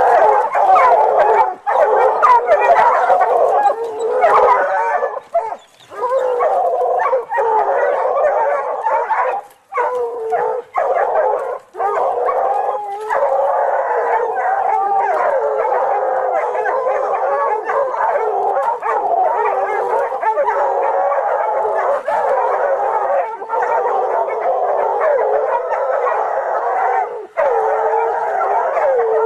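A loud, continuous chorus of animal cries: wavering howls, whines and yelps that break off only briefly a few times.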